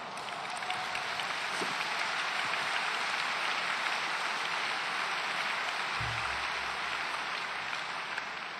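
Large audience applauding steadily, the clapping building up at first and fading near the end.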